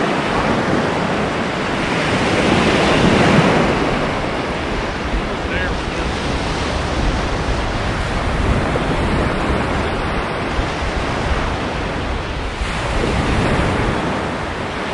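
Ocean surf washing onto a sandy beach, with wind buffeting the microphone; a wave swells loudest about three seconds in.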